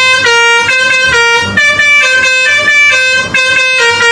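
A 'telolet' multi-tone bus horn playing a tune: a loud run of steady notes that step up and down in pitch, about two to three notes a second, without a break.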